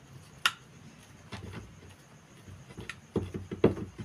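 Small screwdriver turning a screw through a rubber flip-flop disc into a wooden broom handle: scattered small clicks and creaks, a sharp click about half a second in and a cluster of clicks near the end.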